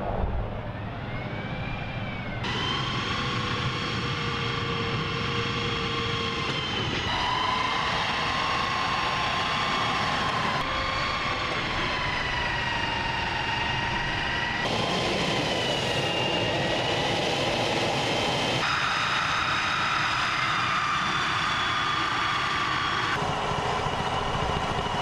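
M1 Assault Breacher Vehicle's gas turbine engine running with a steady high whine over a low rumble. The sound shifts abruptly every few seconds where the footage is cut.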